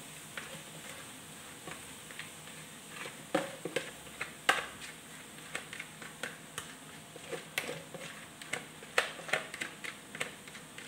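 Plastic spatula knocking and scraping against a plastic bowl as rice vermicelli is scraped out into a wok: a run of irregular sharp taps starting about three seconds in, over a faint steady hiss.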